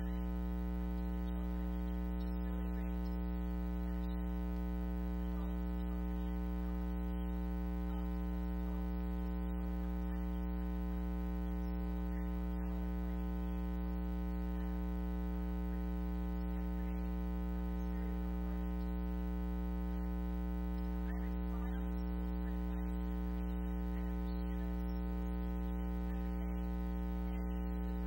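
Steady electrical mains hum: a low buzz with a dense stack of evenly spaced overtones, holding at one level without change.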